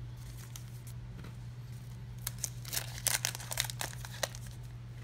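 Wax-paper trading-card pack wrapper crinkling and tearing, in a cluster of crisp rustles from about two seconds in, over a steady low hum.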